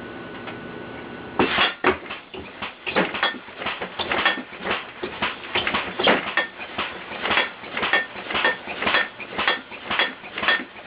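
Pneumatic alarm contraption driven by an air compressor banging on metal: a faint steady hiss, then from about a second and a half in a fast, irregular clanging and clattering like pots and pans being struck, about two or three hits a second, some of them ringing.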